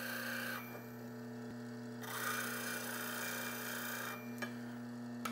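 Steel parting tool ground against a CBN wheel on a Rikon low-speed bench grinder, with the motor humming steadily throughout. The grinding hiss stops about half a second in and starts again for about two seconds in the middle as the bevel is touched to the wheel. These are light passes to bring the bevel's scratch marks to the tip.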